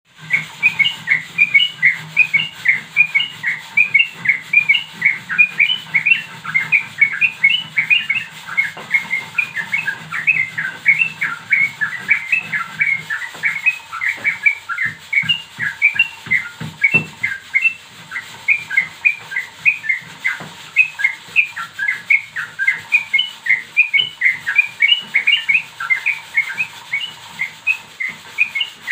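Young yellow-vented bulbul (trucukan) singing in its cage: an unbroken run of short, quick chirped notes, several a second. A few faint knocks come around the middle.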